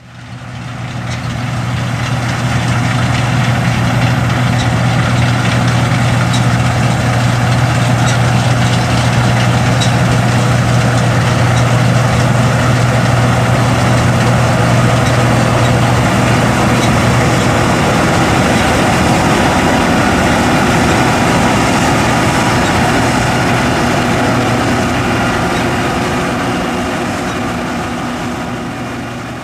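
John Deere S550 combine running in the field, a steady engine drone with a strong low hum that gives way about two-thirds through to a broader machine rush. It fades in at the start and fades down near the end.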